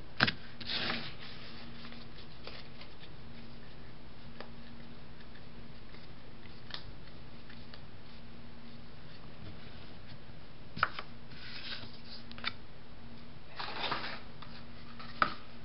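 Paper trading cards being handled on a tabletop: a few sharp taps and short rustles, including a stack of cards set down near the end, over a faint steady hum.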